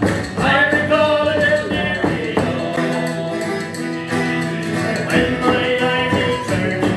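Live acoustic Celtic folk music: acoustic guitar strumming under a metal low whistle and a bowed string instrument, with a man singing along.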